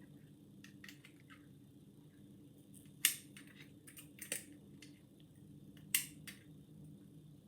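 Lock picks working inside a worn ERA five-lever mortice sash lock: faint scratching and ticking of the pick against the levers, with sharper metallic clicks about three seconds in, again near four and a half seconds, and at six seconds. The lock is stiff from wear in its levers, so it takes heavy tension to pick.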